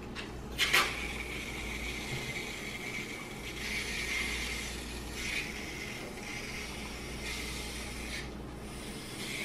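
Two aerosol cans of shaving cream spraying foam in a steady hiss, which starts about a second in after a couple of short clicks and eases off briefly near the end.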